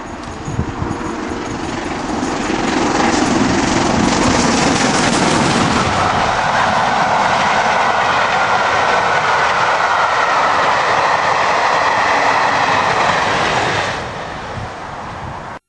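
LMS Princess Royal class four-cylinder Pacific steam locomotive No. 6201 Princess Elizabeth passing at about 75 mph with a train of coaches. The sound builds as the engine arrives, then the coaches rush past with wheel clatter, and it drops away sharply about fourteen seconds in.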